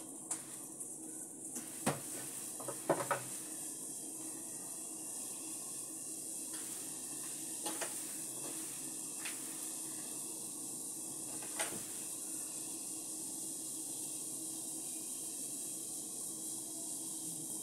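Sliced shallots and spices dropped into an aluminium pot of near-boiling water, with light clinks against the pot, loudest about two and three seconds in, and a few softer knocks later. Under them runs a steady hiss of the heating water.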